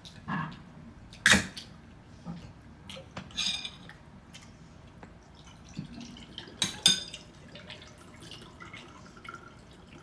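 Close-miked eating sounds: wet mouth noises and chewing, with a few sharp clicks of utensils or dishes. The loudest click comes about a second in, and two more come close together near seven seconds.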